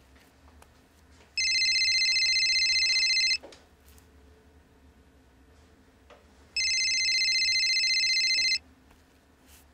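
A home telephone ringing unanswered: two rings, each about two seconds long, the first about a second and a half in and the second about six and a half seconds in.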